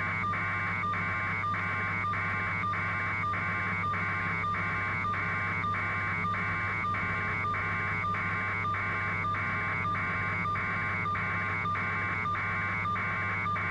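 Steady electronic buzz: a constant low hum under a mid-pitched buzz that pulses evenly about three times a second, typical of line noise on a phone or broadcast audio feed.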